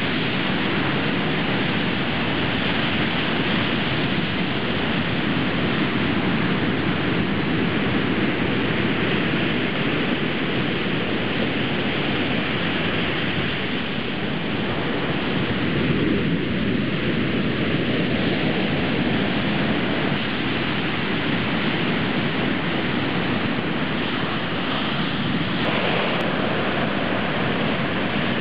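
Ocean surf breaking and washing up a sandy beach: a steady rushing noise with no let-up.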